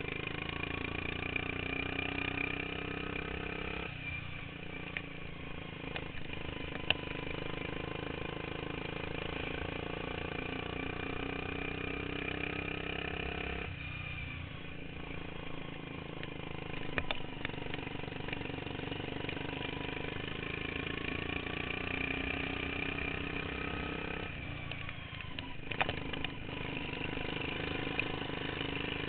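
Modified racing lawn mower engine running hard, easing off briefly three times about ten seconds apart and picking back up, with a few sharp knocks along the way.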